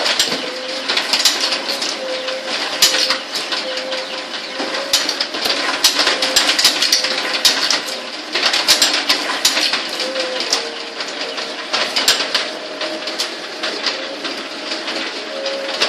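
Bamboo-splitting machine for satay skewers running: a steady motor hum under a continuous crackle of sharp cracks and snaps, typical of bamboo being split.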